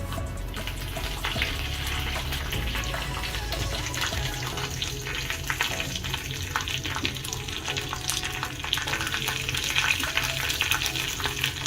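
Curry leaves, green chillies and mustard seeds sizzling and crackling in hot coconut oil in a pan: a South Indian tempering (thalippu) being fried. A steady sizzle runs throughout, dotted with sharp pops and crackles.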